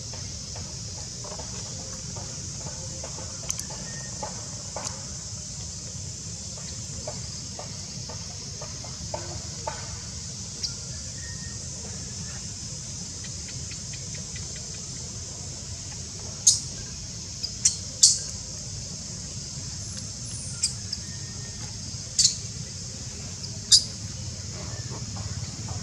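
Baby monkey giving short, shrill, high squeaks, about six of them in the second half, over a steady high hiss.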